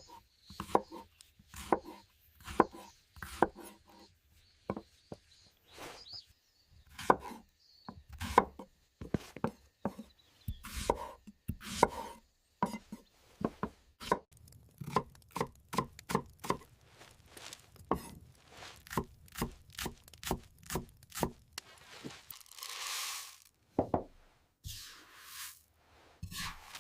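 A kitchen knife chopping food on a cutting board: many sharp knocks, in short irregular clusters at first, then a steadier run of about two to three strokes a second. Two longer hissing sounds come near the end.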